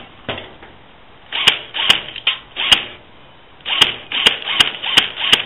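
Airsoft gun shooting: about eight sharp cracks in two clusters, each set in a short burst of noisy rustle.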